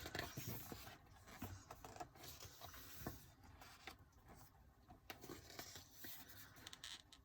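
Faint paper rustling and scattered soft clicks of an album photo book's pages being handled and turned.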